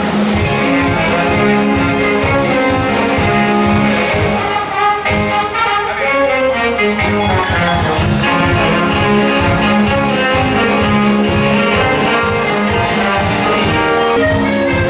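Brass-led band music with a steady beat accompanying a circus horse act. The beat drops out briefly about five seconds in and comes back a couple of seconds later.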